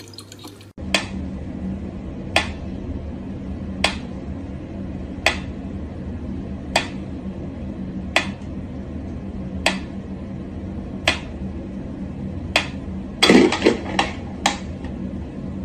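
Mechanical pyramid metronome ticking slowly and evenly, one sharp tick about every second and a half. Near the end comes a quick cluster of several louder knocks.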